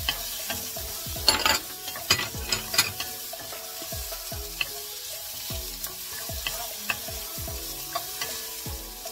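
Carrot and bell pepper strips sizzling in a stainless-steel wok while a wooden spatula stirs and tosses them, with a cluster of sharper scrapes and knocks of the spatula between about one and three seconds in.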